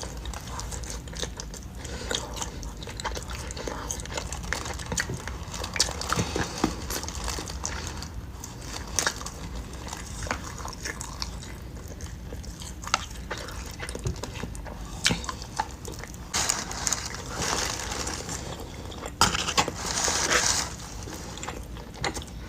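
Close-miked eating sounds: chewing and biting, with scattered wet clicks and short crackly bursts, busier near the end.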